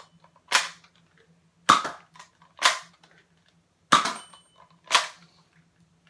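Nerf Accustrike Quadrant spring-plunger dart blaster being primed and fired in turn: sharp plastic snaps about a second apart, the heavier ones the plunger firing darts and the lighter ones the priming handle being pulled back.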